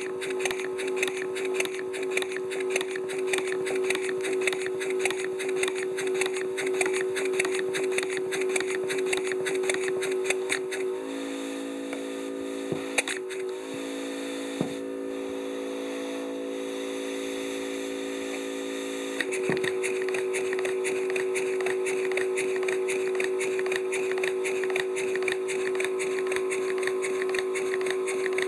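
Model Heisler V-twin steam engine running on compressed air from a small spray compressor: a rapid patter of exhaust beats and valve-gear clatter over a steady hum. For several seconds in the middle the patter drops away and the hum changes pitch, then the engine picks up again.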